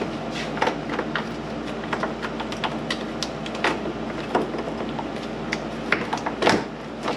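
Scattered clicks and light knocks of plastic and rubber parts being worked loose and handled at a car's radiator mount, the loudest knock near the end, over a steady low hum.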